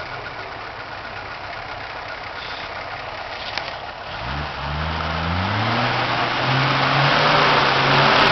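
Nissan Patrol Y60's 4.2-litre turbodiesel engine running low for the first few seconds. About four seconds in it revs up, its pitch climbing in steps and growing steadily louder as the truck pulls up the muddy slope toward the microphone.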